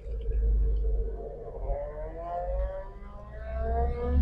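1939 Chevrolet Master 85's straight-six running under a low rumble as the car pulls away, with a whine that rises in pitch as it gathers speed, drops back about two-thirds of the way in, then starts rising again near the end.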